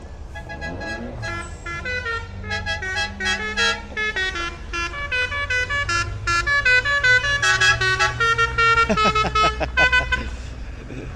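A musical horn on a passing van plays a quick tune of stepped notes over the low running of van engines. Near the end it gives way to several fast sliding tones.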